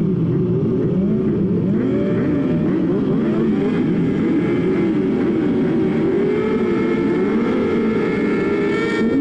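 A grid of 600cc race motorcycles running together, many engines revving and blipping their throttles at once so their pitches keep rising and falling over one another, as the bikes wait on the starting grid.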